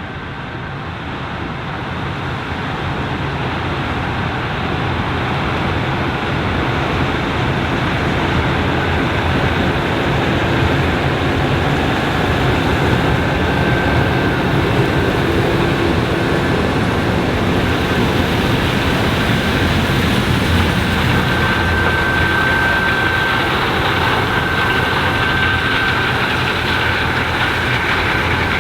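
Challenger 560C combine's 9.8-litre seven-cylinder AGCO Power diesel and threshing machinery running steadily while harvesting corn. It grows louder over the first several seconds, then holds.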